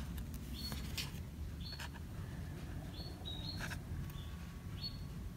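Pet canaries chirping in the background: short high two-note chirps, each stepping down in pitch, coming roughly once a second. Faint taps and rustles come from cards being handled and turned over.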